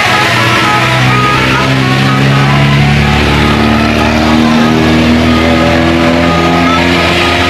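A large tour bus passing with its engine running steadily, heard together with music.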